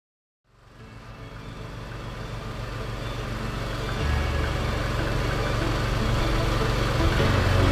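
Motor vehicle engine running with road noise, fading in from silence and growing steadily louder; the low engine note strengthens about four seconds in.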